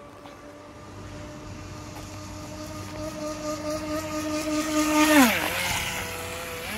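HobbyKing FT009 RC speedboat's brushless electric motor running at speed, a steady high whine that grows louder as the boat comes closer. About five seconds in, at its loudest, a hissing rush of water joins it and the whine drops sharply in pitch, then rises again briefly near the end.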